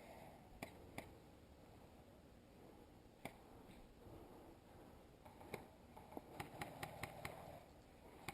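Faint sharp pops of airsoft guns firing, single shots at first and then a quick string of about five shots near the end, over near silence.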